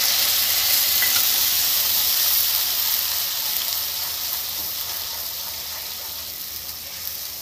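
Onion paste sizzling as it fries in hot mustard oil and ghee in a kadai while being stirred with a spatula. The sizzle is loudest just after the paste goes in and slowly dies down.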